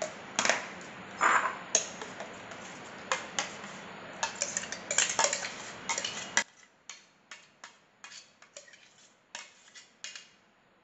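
A steel spoon clinking and scraping against a steel mixer-grinder jar and a glass bowl, scooping out thick tomato puree, in a string of irregular sharp clinks.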